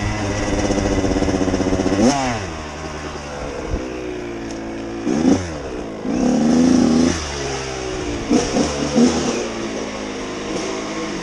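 Dirt bike engine running, with a sharp rev about two seconds in, another a few seconds later, and a burst of quick throttle blips in the second half as the bike rolls along slowly.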